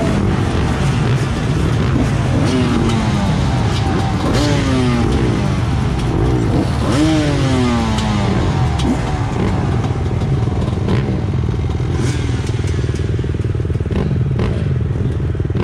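A pack of off-road dirt bikes running on a start line. Several riders blip their throttles, so overlapping engine notes keep rising and falling over the steady running of the rest.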